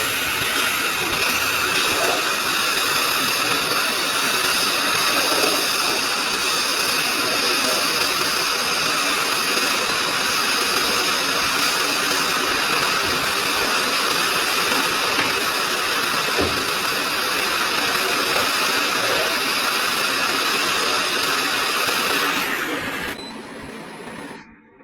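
Hot air rework station blowing a steady hiss of air, which stops near the end.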